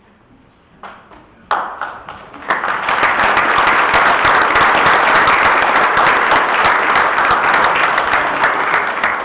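Audience applauding: a few single claps about a second in, then full, loud applause from about two and a half seconds on.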